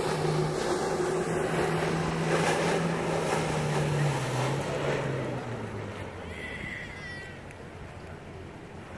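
Jet ski engine running hard to drive a flyboard's water jet, with the hiss of spray; about halfway through it winds down, its pitch falling and the sound fading as the throttle is eased and the rider sinks back into the water.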